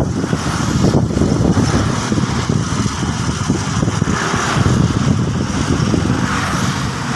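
Engine of a rice harvesting machine running steadily under load.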